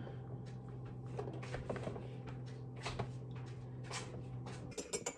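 Dual coffee maker running with a steady low hum while it is run to clean out its single-serve brewer; the hum cuts off near the end. Light clicks and taps from handling the machine sound over it.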